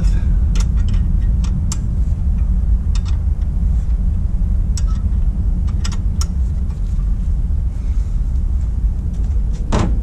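Scattered light metallic clicks and clinks of hand tools and fittings being worked at the alternator in a truck's engine bay, over a steady low rumble; a louder knock comes near the end.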